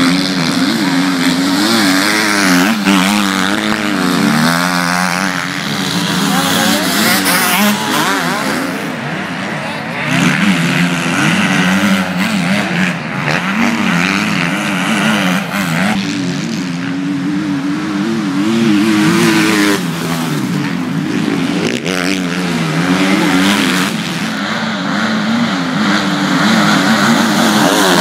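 Several MX2 motocross bikes racing on a dirt track, their engines revving up and down over and over as the riders accelerate, shift and back off, with more than one bike heard at once.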